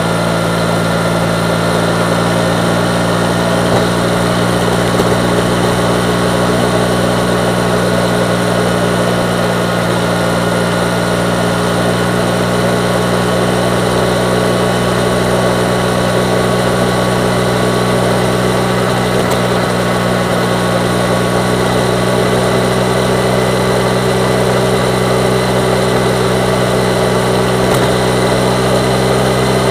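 Yamaha MT-09's inline three-cylinder engine running at a steady cruise, its note holding almost constant and edging up slightly near the end, under a steady rush of wind noise.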